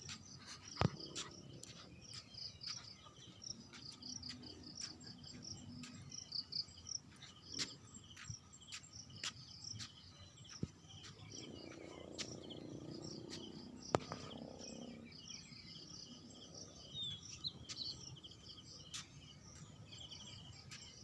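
Insects chirping in a continuous chorus of rapid, high pulses, with scattered sharp clicks throughout. A low rumble rises and fades in the middle.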